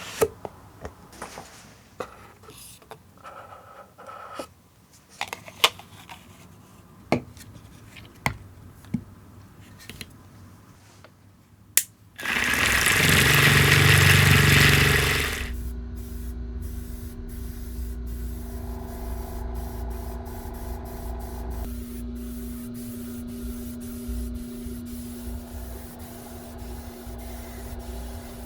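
Primer paint being sprayed: a loud, even hiss lasting about three seconds, about twelve seconds in. Before it come scattered sharp clicks and knocks of handling, and after it a steady machine hum.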